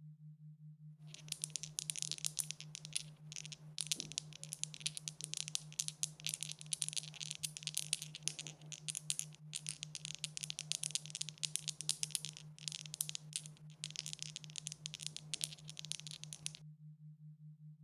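Dice rattling as they are shaken: a dense run of fast clicks that starts about a second in and stops about a second before the end, over a faint steady low hum.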